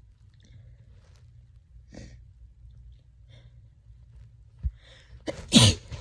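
A person with a head cold breathing in quietly as a sneeze builds, then one loud sneeze near the end.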